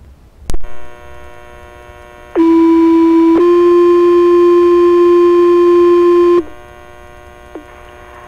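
Fire dispatch two-tone page heard through a Baofeng UV-5R handheld scanner, alerting the fire station to respond. A click as the channel opens, then a steady radio hiss and hum. A tone of about a second steps slightly higher into a second tone held about three seconds, then cuts off.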